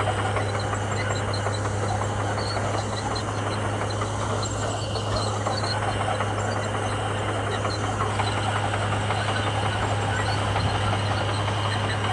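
Komatsu bulldozer's diesel engine running steadily with a constant low hum.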